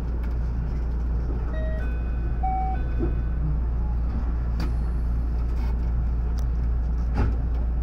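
Steady low hum of a 521 series electric train standing at a station, heard from the cab. A short electronic chime of a few notes at different pitches sounds about a second and a half in, and there are two sharp clicks later on.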